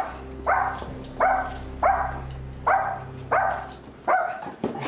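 A dog barking over and over in sharp, evenly spaced barks, about three every two seconds.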